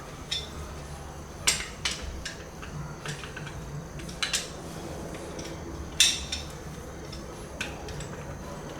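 Irregular metallic clinks and clicks of small metal parts and tools being handled, about ten separate knocks with the sharpest one about six seconds in.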